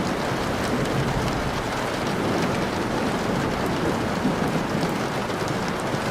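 Steady rain falling, a dense even patter with a low rumble underneath it.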